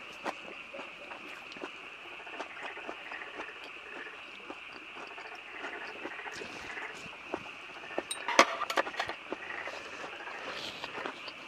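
Eating sounds: chewing and small clicks of metal chopsticks against the plate while eating sliced raw fish, with a sharper clatter about eight seconds in. Under it runs a steady high chorus of night insects and frogs.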